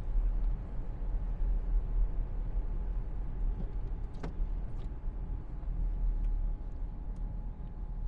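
Steady low rumble of a car's engine and tyres heard from inside the cabin while driving on a wet road, with a single sharp click about four seconds in.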